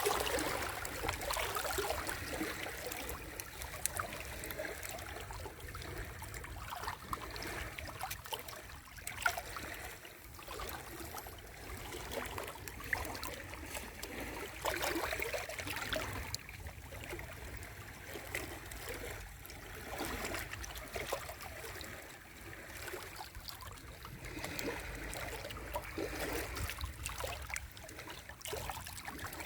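Small sea waves washing in at the shore, with splashing and trickling water that swells and ebbs: louder surges near the start, around the middle and again near the end.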